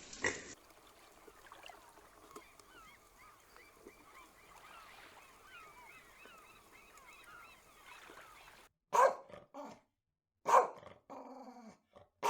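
Animal calls: several seconds of many faint, short, high chirps overlapping one another, then loud short calls, one about every second and a half, near the end.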